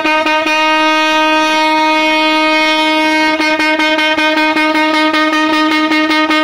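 A ship's horn sounds one long, loud, steady note. A rapid, even pulsing beats through it, pausing for a couple of seconds soon after the start.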